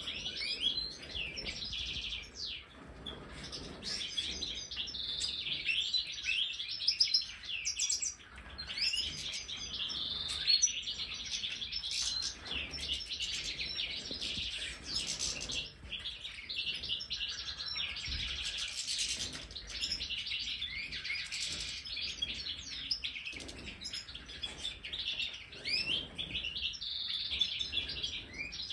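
A flock of European goldfinches calling and twittering, with many short chirps overlapping without a break.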